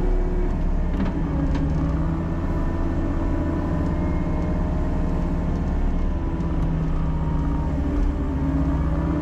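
Engine running steadily, its note shifting slightly up and down, with a couple of light clicks about a second in.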